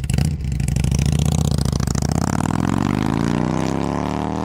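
Motorcycle engine revving: a sharp blip of the throttle at the start, then the engine speed rises steadily over the next few seconds.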